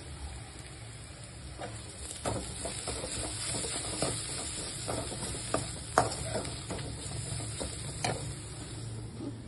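Onions and spices frying in a metal kadai, with a steady sizzle, as a steel spoon stirs and scrapes against the pan from about a second and a half in; the sharpest clink of spoon on metal comes about six seconds in, another near eight seconds.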